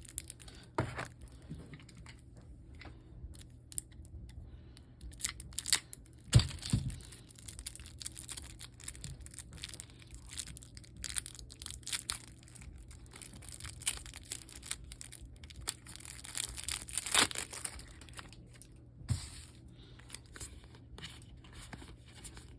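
Plastic packaging being torn and crinkled as board game pieces are unwrapped, in irregular bursts of crackling with small clicks, and a sharper knock about six seconds in.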